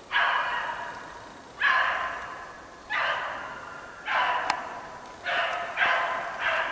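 Hunting hounds baying while trailing a hare: about seven drawn-out bays in a row, each starting sharply and trailing off, two of them close together near the end.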